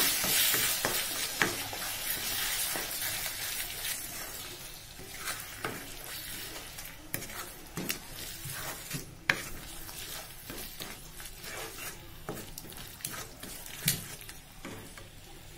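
Spice paste frying in a wok as curd is stirred into it, the sizzle loudest at first and dying down, with a spatula scraping and tapping against the pan.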